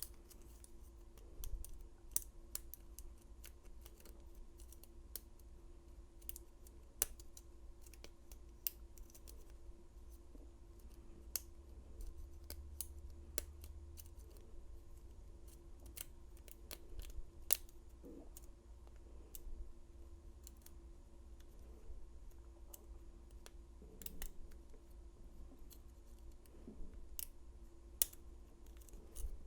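Faint, irregular metallic clicks and scrapes of a lock pick and tension wrench working the pins inside an old padlock's keyway during single pin picking, with a low steady hum underneath.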